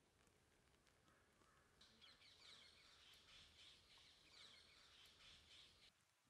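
Faint birds chirping, beginning about two seconds in and cutting off abruptly near the end.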